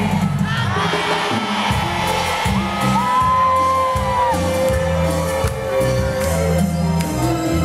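Live cumbia band music with a steady bass line and long held keyboard notes, with a crowd whooping and shouting.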